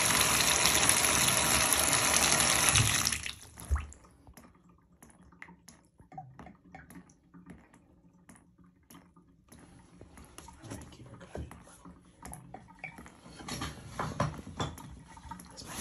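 Bathtub faucet running into the tub, a steady rush that is shut off sharply about three seconds in. After that come faint drips and small trickling ticks as water sits around the tub's pop-up drain, which is clogged and draining slowly.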